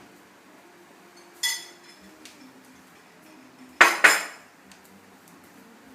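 A short ringing clink about a second and a half in, then a much louder, sharp double clatter a little under four seconds in, like dishes or metal objects knocked about.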